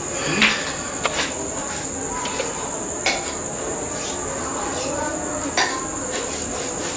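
A steady high-pitched cricket-like trill with a noisy background, broken by a few short knocks and clatters as a metal adhesive tin and plastic floor sheeting are handled.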